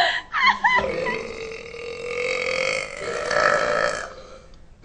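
A short vocal sound, then a long drawn-out belch from a teenage boy, lasting about three seconds and ending about four seconds in.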